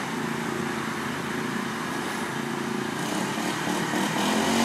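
Snapper riding mower's small engine running steadily, mixed with road traffic noise; a large truck passes near the end, its sound building up.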